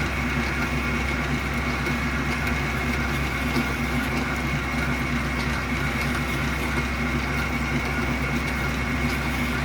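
An 80-year-old South Bend metal lathe running steadily in back gear while a 1-inch drill bit bores into a slug held in its chuck, giving an even hum with a thin high whine.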